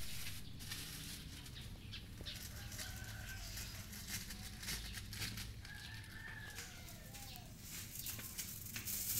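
A rooster crowing faintly, twice: a short crow about three seconds in and a longer one about six seconds in, over a low steady background hum.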